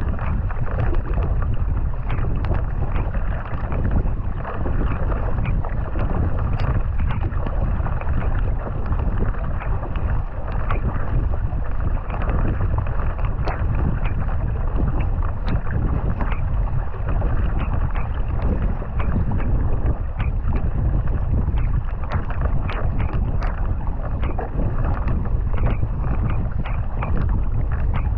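Racing kayak under way with a wing paddle: wind buffeting the microphone and water rushing past the hull, with frequent short splashes as the blades catch and leave the water.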